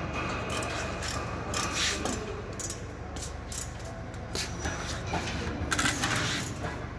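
Steady low hum of factory machinery with scattered metallic clicks and clattering, loudest about two seconds in and again near six seconds.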